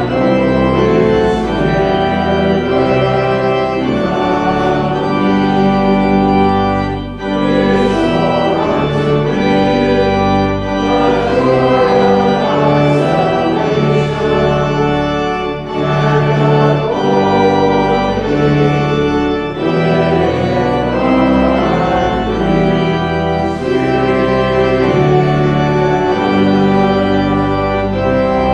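Church organ playing the offertory music, held chords moving steadily from one to the next.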